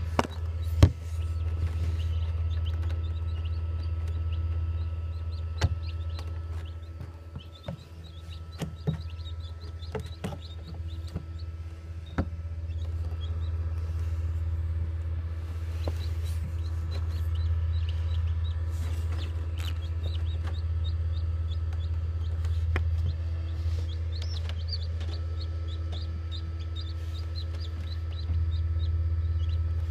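Newly hatched chick peeping, a run of short, high, repeated cheeps, over the steady low hum of an egg incubator. A few sharp knocks cut in, the loudest about a second in.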